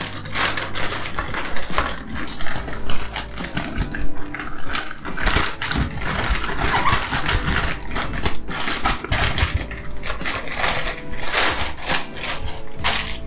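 Clear plastic storage bag crinkling and rustling in irregular crackles as a spool of 3D printing filament is worked into it by hand.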